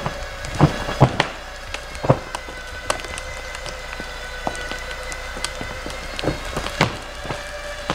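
Large fallen tree being dragged by a 12,000 lb electric winch: scattered sharp cracks and snaps of wood and branches, the loudest about a second in and near the end, over a faint steady whine from the winch.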